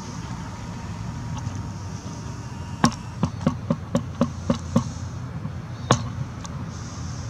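A quick run of sharp clicks or knocks, about eight in under two seconds, with one more a second later, over a steady low outdoor rumble.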